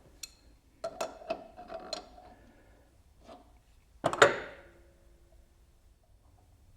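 Clatter of tools and parts being handled: a few sharp clicks and metallic clinks, then one loud knock about four seconds in that rings briefly.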